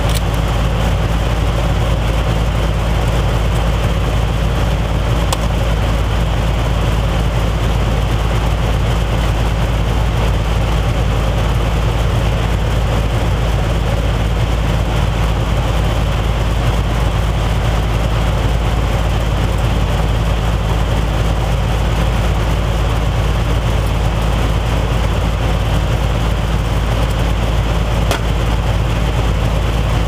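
Loud, steady machine hum and drone, unchanged throughout, with a few faint clicks from wires being handled.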